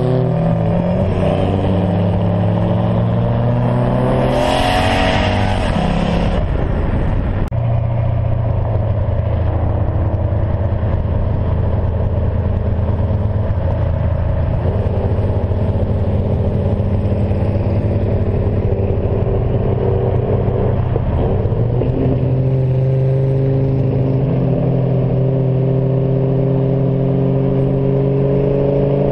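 A car's engine under hard acceleration in a street race, heard close up: its note climbs for the first several seconds, settles into a long steady high drone, and climbs sharply again at the very end.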